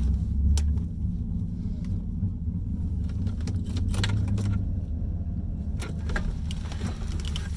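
Steady low engine rumble, with a few light clicks and rattles inside the car.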